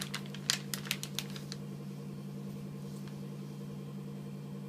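Steady low mechanical hum, with a few sharp clicks in the first second and a half.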